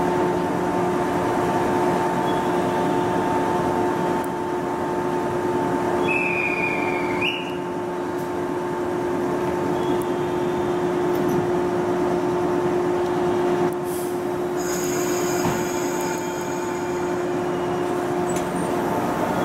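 Electric commuter train standing at the platform, its onboard equipment humming steadily at a few fixed pitches. A short high tone sounds about six seconds in, and higher steady tones come in for a couple of seconds about fifteen seconds in.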